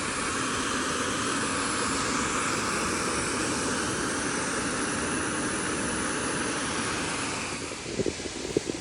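Portable gas camping stove burner running with a steady hissing rush under the coffee maker; it cuts off near the end, followed by a few light knocks of handling.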